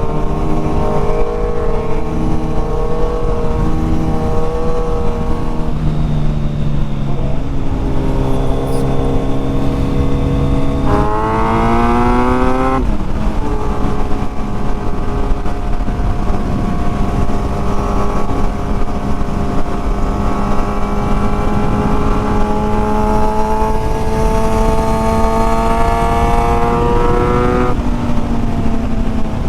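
Motorcycle engine running under way, over a rush of wind noise. About eleven seconds in, the revs climb sharply, then fall back at a gear change. The engine then runs at steady revs until the pitch drops again near the end.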